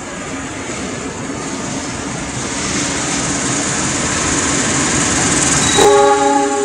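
Tank wagons of a freight train rolling past, their wheels on the rails making a dense rumble and hiss that grows steadily louder. Near the end a sharp click is followed by a loud pitched tone, with several overtones, for under a second.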